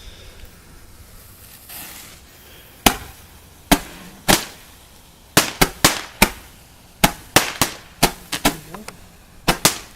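Two Roman candles firing, a sharp pop for each ball launched. More than a dozen pops at uneven spacing, some in quick clusters, begin about three seconds in.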